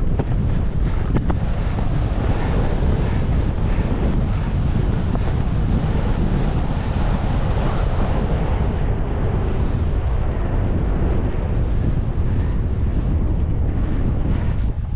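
Wind buffeting a skier's camera microphone in a heavy, steady rumble, with the hiss of skis sliding over chopped-up snow. The higher hiss thins out about halfway through, as the skis move onto smoother groomed snow.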